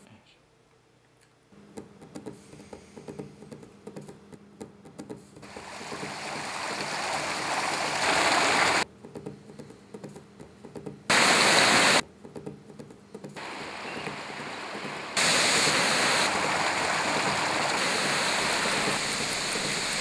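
Rushing noise like running water, swelling from a few seconds in and switching abruptly between loud and quieter stretches.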